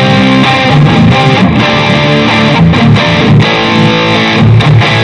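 Electric guitar played through a Nux MG-400 multi-effects unit over its built-in drum-machine beat, with the unit's looper engaged.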